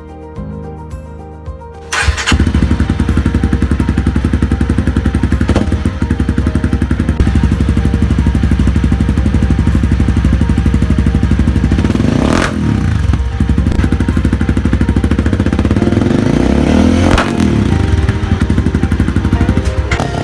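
Honda CRF250L's single-cylinder four-stroke engine running through an FMF Powercore 4 exhaust. It comes in suddenly about two seconds in, idles, and is revved up and let back down twice before cutting out near the end. Background music plays under it.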